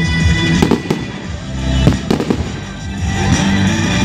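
Fireworks display: aerial shells bursting in several sharp bangs, over loud music playing through the display's sound system.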